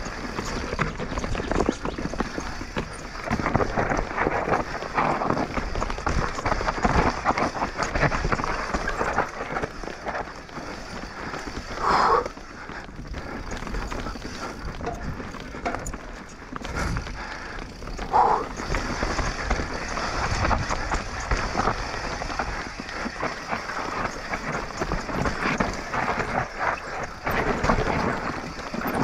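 Mountain bike on a rough downhill trail: the tyres crunch over dirt and stones, and the bike rattles and clatters without a break. Two brief louder sounds stand out, about twelve and eighteen seconds in.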